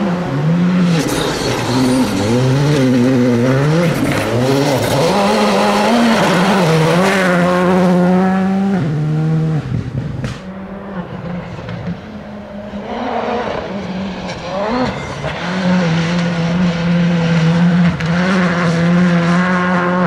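Skoda Fabia R5 rally car's turbocharged 1.6-litre four-cylinder engine driven flat out on gravel, revving up and dropping through quick gear changes. About halfway through it dies away briefly as the car passes, then climbs back to a high steady rev near the end.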